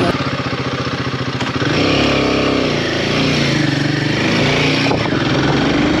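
Royal Enfield Himalayan 450's single-cylinder engine running on the move, its note rising and falling with the throttle from about two seconds in.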